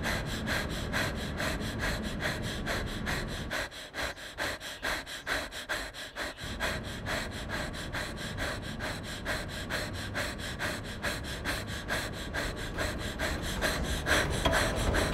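Rapid, rhythmic panting breaths, about five a second, running evenly throughout.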